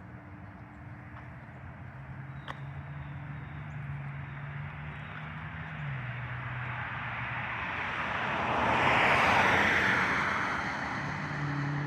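A vehicle passing by, its noise building slowly to a peak about nine seconds in and then fading, over a low steady hum.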